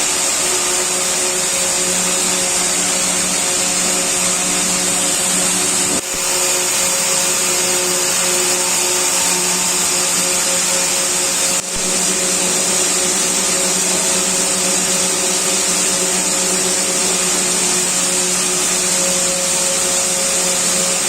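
Jiunn Long open-width circular knitting machine running at high speed: a steady mechanical whir with a strong high hiss and a few steady hum tones. The sound jumps slightly about six and twelve seconds in.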